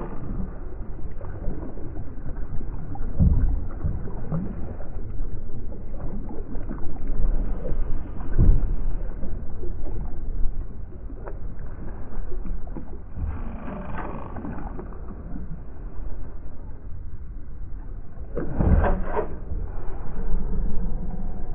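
Steady sea and wind noise aboard a small fishing boat, with a few dull knocks against the boat.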